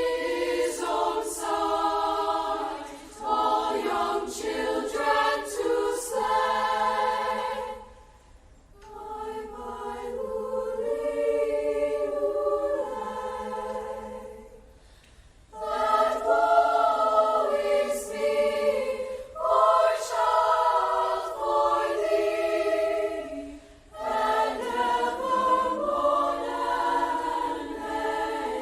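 Student choir singing in sustained phrases, pausing briefly between them.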